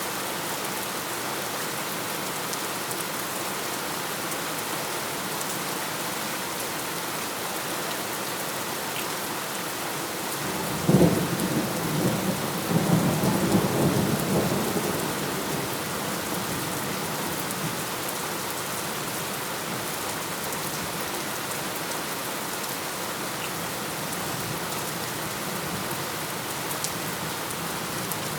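Steady rain, with a sudden crack of thunder about eleven seconds in, followed by rumbling that dies away over the next few seconds.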